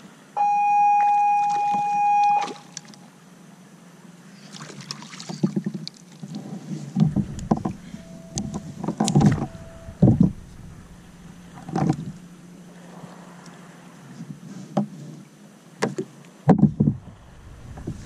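A loud, steady beep-like tone lasting about two seconds near the start. Then scattered clicks, knocks and low thumps of fishing gear being handled in a plastic kayak, over faint water and wind.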